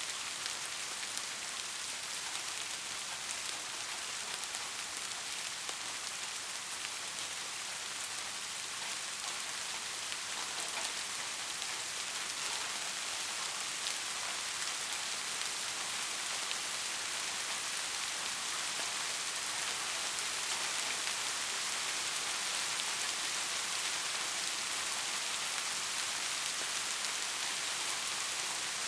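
Steady rain falling, an even hiss of many fine drops with faint individual drop ticks.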